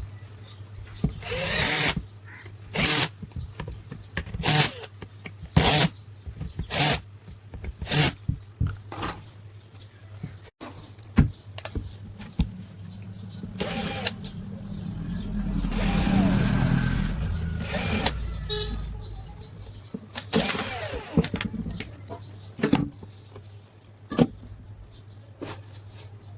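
Irregular sharp clicks and knocks of tools and parts being handled during fan repair work, over a steady low hum, with a longer swell of noise about two thirds of the way through.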